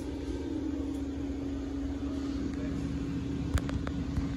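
Steady low hum of a store's background, one constant tone over a low rumble, with a single sharp click about three and a half seconds in.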